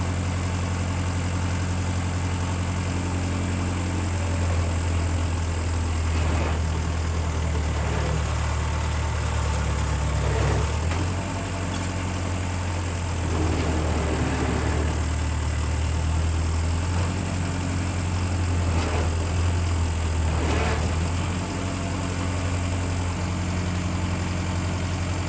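Tractor engine running under load while its front loader pushes against a large oak stump, the engine note rising and falling a few times as it strains. A few brief sharper sounds come over it. The stump is not giving way.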